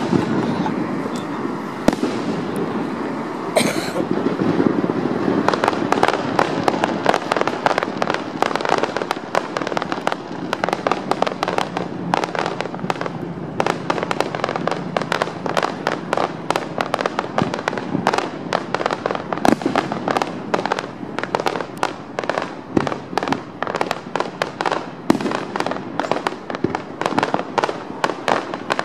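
Fireworks display: aerial shells bursting overhead. From about five seconds in it thickens into a rapid, continuous run of bangs and crackles.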